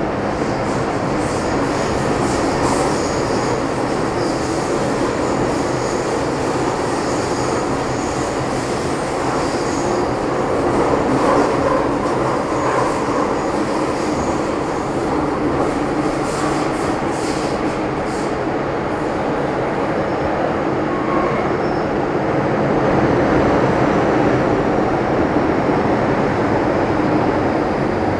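Metro Cammell M-Train electric multiple unit with GEC GTO chopper control, heard from inside the car while running between stations in the Island Line tunnel. It is a steady, loud rumble of wheels and motors on the rail, with faint high-pitched squeal in the first part.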